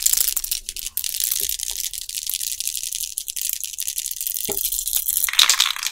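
Aerosol spray can of primer being shaken hard, the mixing ball rattling fast inside it.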